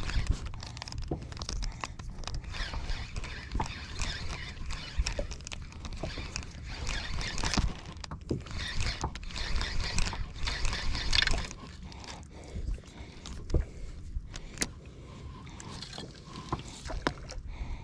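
Water slapping against a small boat's hull, with a low wind rumble on the microphone and scattered clicks and scrapes from a spinning rod and reel being worked during jigging. The hissing water sound eases about two-thirds of the way through.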